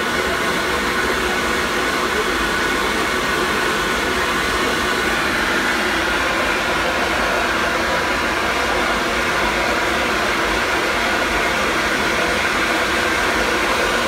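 Disneyland Railroad steam locomotive venting steam: a loud, steady hiss that holds level throughout.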